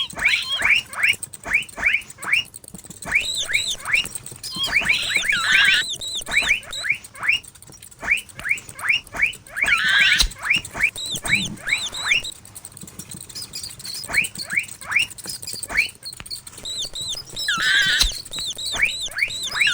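Mouse squeaking sound effects: runs of quick, high-pitched squeaks, several a second, coming in bursts every few seconds with short pauses between.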